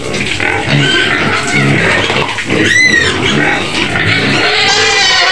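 A sow and her piglets squealing and grunting in a pen, with one sharp, high squeal about three seconds in. The pigs are clamouring impatiently for their feed.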